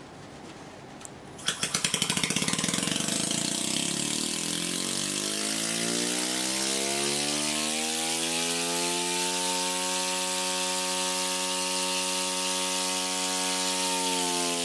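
Opened-up scroll compressor from an air conditioner starting about a second and a half in with a rapid clatter. Its hum rises in pitch over several seconds as it comes up to speed, then it runs steadily with a constant hiss of gas and oil vapour blowing out.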